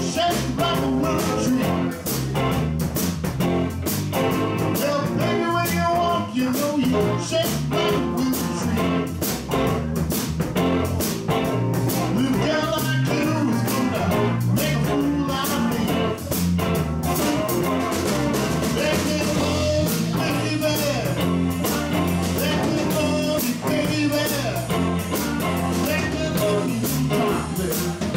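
Live electric blues band playing: electric guitars over bass guitar and a drum kit keeping a steady beat.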